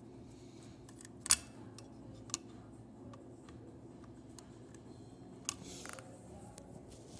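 A few sharp metallic clicks and taps from hand tools and small screws being worked out of an arcade prize-wheel motor's back bracket, the loudest about a second in, with a short scraping rustle near six seconds. A steady low hum runs underneath.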